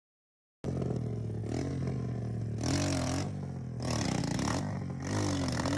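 Dirt bike engine revved hard in about four surges, its pitch rising and falling, as the bike labours through deep mud.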